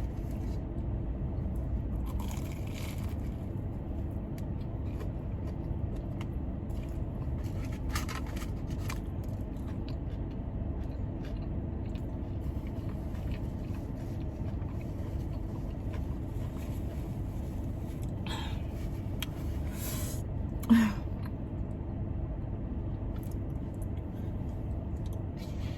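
Steady hum of a car's air conditioning running in the cabin, with a few short scrapes and chewing sounds of eating scattered through it and one brief louder sound about three quarters of the way through.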